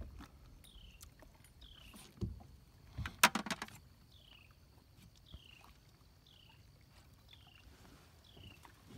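Knocks and a short clatter about three seconds in as a trotline is hauled hand over hand and wound onto a line holder in a small boat. A short, high, falling chirp repeats about once a second.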